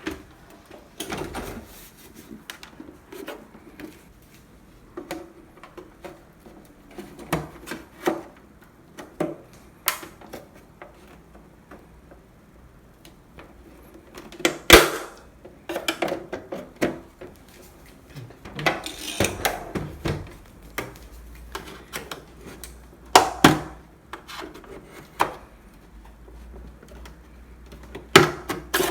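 Scattered clicks, taps and clanks of screws, a screwdriver and the metal casing panels of a Breville 870 espresso machine being taken apart, with one sharp clank about halfway through.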